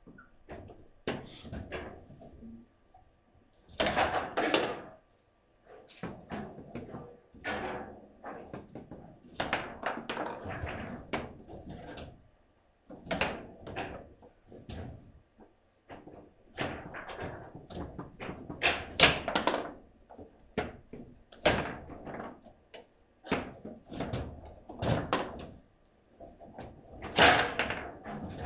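Foosball table in play: an irregular run of sharp knocks and thunks as the ball is struck by the rod-mounted plastic players and the rods are worked, with brief lulls between rallies.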